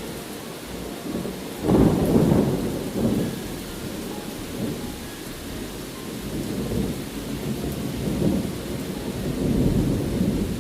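Steady rain with rolling thunder: a loud low rumble about two seconds in, smaller swells after it, and another rumble building near the end.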